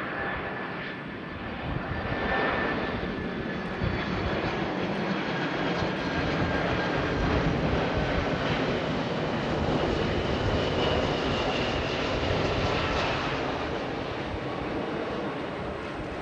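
Jet engines of a McDonnell Douglas MD-11 tri-jet on final approach: a steady rumble and rush with thin whining tones, some of them drifting slightly lower in pitch partway through.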